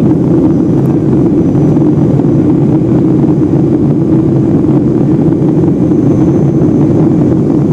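Boeing 757-200 twin-jet in flight, heard from inside the cabin: a steady, loud low rumble of engines and airflow that does not rise or fall.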